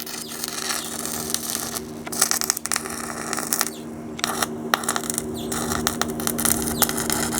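Electric welding arc crackling and sizzling steadily as a weld is laid on steel, with irregular sharp pops and the welder's steady hum underneath.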